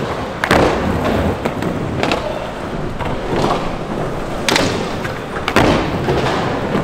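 Skateboard rolling on the park surface, its wheels making a steady rolling noise, broken by about four sharp clacks and thuds of the board hitting the ground, loudest about half a second in and again around four and a half and five and a half seconds in.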